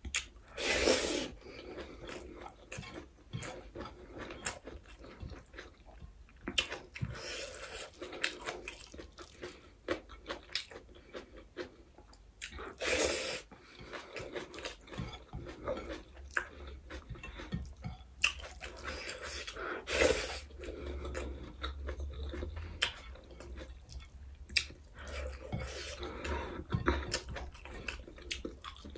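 Close-miked chewing and wet mouth smacks of a person eating rice and dal by hand, with many small clicks and a few louder noisy bursts about a second in, around halfway and a little later.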